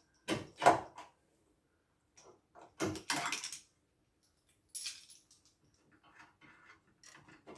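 Metal car suspension parts knocking and clinking as they are handled and fitted. There are two loud knocks just after the start, a clatter about three seconds in, a short high jingle near five seconds, then light taps.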